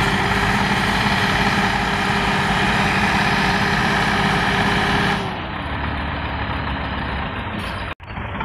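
Tractor diesel engine running at high revs under heavy load as it hauls a sand-loaded trolley out of a pit, the front wheels lifting with the strain. About five seconds in the revs drop and the engine goes quieter and lower.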